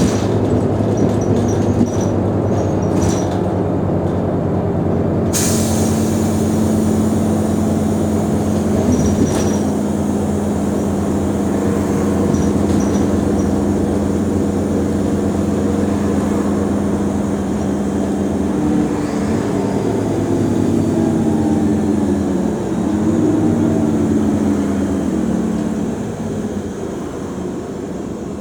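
Mercedes-Benz O345 Conecto G articulated bus engine running under way with a steady drone. A high hiss comes in suddenly about five seconds in, and in the last third the engine note rises and falls several times.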